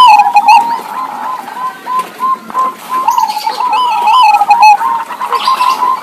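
Zebra doves cooing: quick strings of short, bending notes repeated over and over, with fainter higher chirping notes above them.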